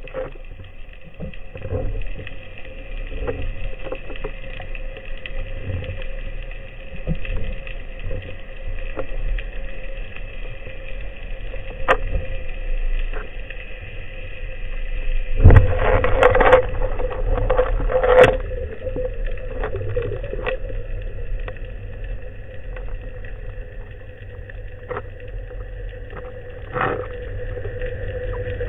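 Underwater sound heard through a camera housing on a speargun: a steady hum with scattered clicks and knocks. About halfway through comes a louder rush of noise lasting a couple of seconds, with another burst shortly after.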